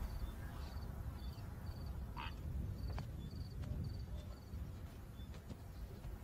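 Open grassland ambience: birds calling, with short high triple chirps repeating about twice a second and a stronger sweeping call about two seconds in, over a low rumble. A single sharp click comes about three seconds in.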